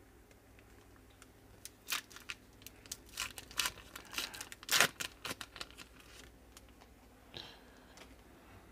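Foil wrapper of a 2015 Topps WWE Chrome trading-card pack being torn open and crinkled: a run of sharp crackles starting about two seconds in, loudest a little past the middle, fading out by about six and a half seconds.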